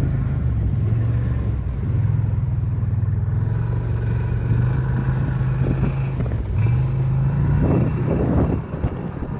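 A small motor vehicle's engine running steadily under load, its speed rising and dipping, while it tows a snow banana sled.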